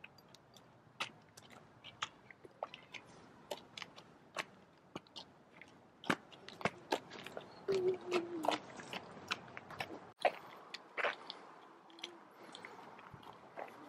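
Footsteps of several people, adults and small children, crunching irregularly on a gritty gravel trail.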